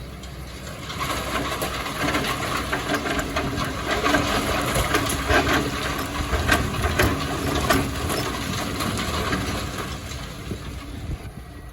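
Excavator engine running, with many short knocks and clatters of rock and sand. These grow louder from about a second in and ease off near the end.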